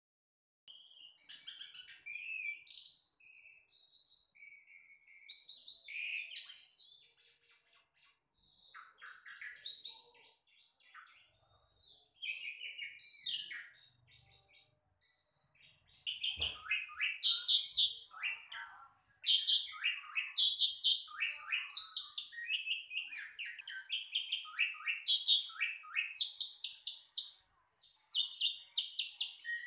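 A songbird singing long, varied phrases of rapid chirps and trills with short pauses, the song growing almost continuous about halfway through. There is a single brief knock about halfway through.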